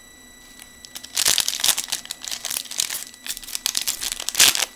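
Foil wrapper of a 2013 Topps Prime football card pack crinkling and tearing as it is ripped open by hand, starting about a second in.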